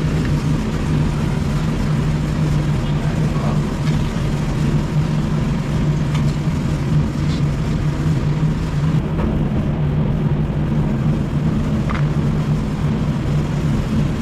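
A steady, loud, low mechanical drone, like an engine running without change, with a few faint sharp clicks.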